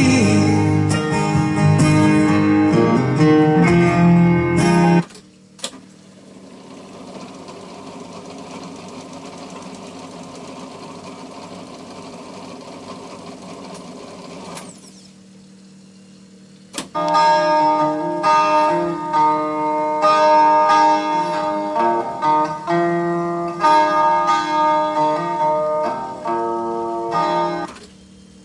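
Guitar music played back on an Ilet-110 Stereo reel-to-reel tape recorder through its speakers. The music cuts off suddenly about five seconds in, with a click. A steady whir of the tape transport winding the reels follows for about nine seconds. After another click the music plays again and stops just before the end.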